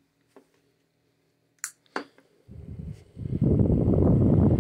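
A few sharp clicks, then a small electric desk fan, a 1925 Polar Cub Type H, is switched on and spins up. Its blades push air across the microphone in a loud, gusty rumble that builds over about a second.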